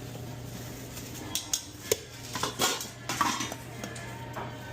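Kitchen utensils and pans clattering while a burrito is put together: irregular sharp clinks and knocks over a steady low hum.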